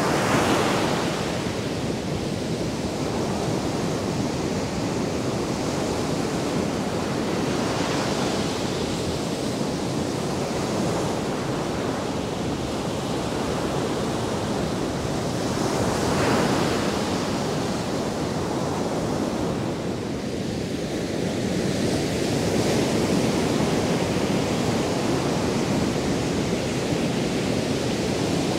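Ocean surf on a sandy beach: a continuous rush of breaking waves and wash, swelling louder about every eight seconds as each wave breaks.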